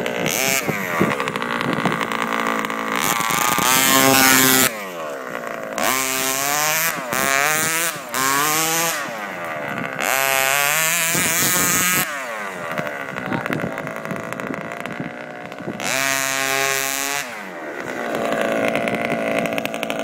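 Small two-stroke petrol engine of a radio-controlled truck revving hard in about four bursts of throttle and dropping back between them, its pitch sweeping up and down.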